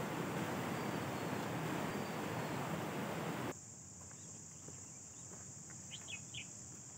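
Steady rushing outdoor hiss with a few faint high bird chirps. It cuts off abruptly about halfway through to a quieter scene: insects droning steadily at a high pitch, with a few short bird chirps near the end.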